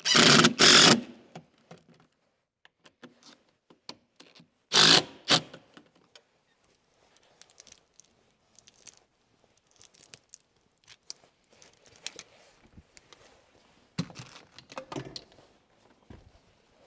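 MC armored electrical cable and hand tools being worked at a metal electrical box: scattered light metallic rattles and scrapes. Short loud scraping bursts come in the first second, about five seconds in, and about fourteen seconds in.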